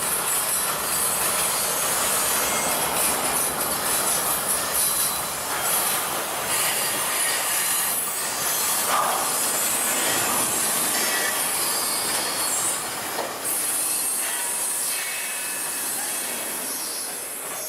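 Freight train cars rolling past with steel wheels squealing against the rails. The sound eases off near the end as the train draws away.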